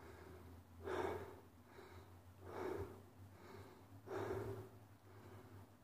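A person's heavy breathing close to the microphone: three breaths about a second and a half apart.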